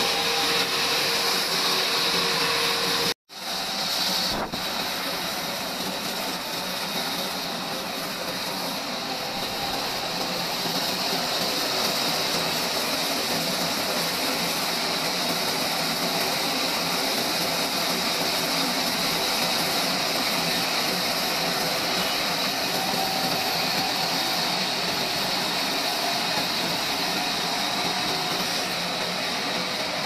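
Band sawmill blade cutting lengthwise through a large log: a steady mechanical running sound, broken once by a brief gap about three seconds in.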